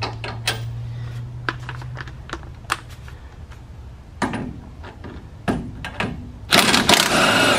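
Metal tools and sockets clinking and clattering as a socket is chosen and fitted onto the sway bar end link nut, then about a second from the end a power tool starts running the socket on the nut, the loudest sound.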